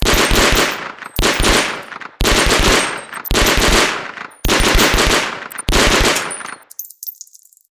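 MP 41 submachine gun firing six short automatic bursts, about one a second, each burst a rapid string of shots that rings off into an echo. A run of faint light clicks follows near the end.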